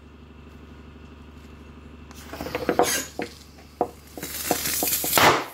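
Homemade CO2 airsoft grenade, a bicycle inner tube over a punctured 8-gram CO2 cartridge, going off: a run of sharp clicks as the tube swells, a loud gas hiss for about a second, then the tube bursts with a bang near the end.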